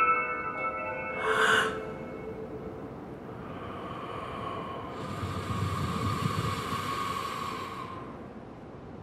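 Chime-like mallet notes ring out and fade. About a second and a half in comes a short breathy rush, then a longer swelling rush of noise with a low rumble under it, which fades out near the end.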